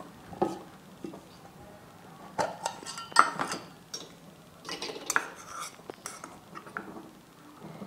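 Stainless-steel kitchenware clinking off-screen: a spoon knocking against steel dishes in a scatter of sharp clinks with a short metallic ring. The loudest clink comes about three seconds in.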